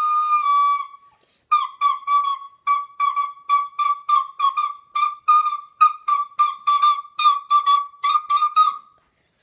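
Recorder playing: a held note that ends about a second in, then after a short pause a long run of short tongued notes at nearly one pitch, about three a second, stopping shortly before the end.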